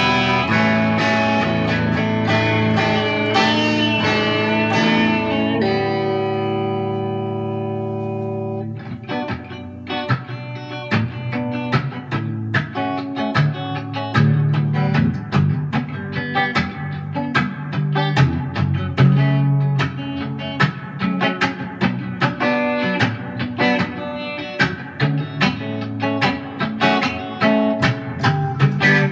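Les Paul-style electric guitar playing: full ringing chords for the first several seconds, then a held chord dies away and quick, rhythmic picking follows.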